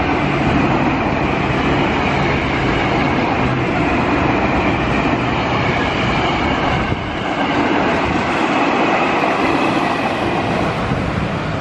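Electric commuter train of the KRL Commuter Line, an ex-Tokyo Metro 6000 series set, running past at close range: a steady rolling noise of wheels on rail with a low hum. About seven seconds in the noise dips briefly, and a second KRL electric train is then heard passing on the other track.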